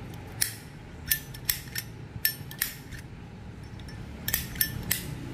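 Metal Zippo lighters being handled: about ten sharp, irregular metallic clicks and clinks, some with a brief ring, as the cases, lids and inserts knock together.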